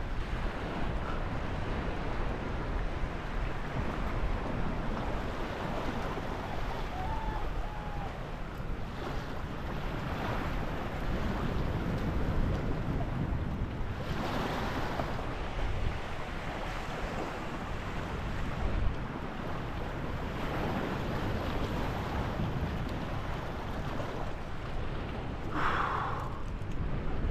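Steady wind buffeting the microphone over rippling, lapping water at a river mouth, with a brief louder rush about a second and a half before the end.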